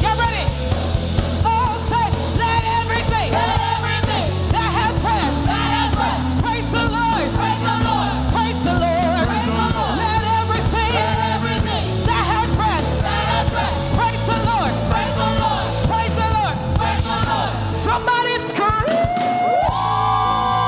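Live gospel praise band playing an upbeat song with drums and bass, a voice singing wordless runs and shouts over it. About nineteen seconds in, the bass drops out and a held chord swells up.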